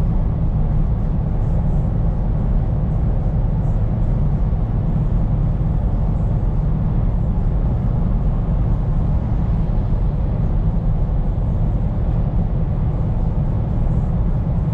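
Scania P410 truck's diesel engine running steadily under way, a constant low drone with road noise.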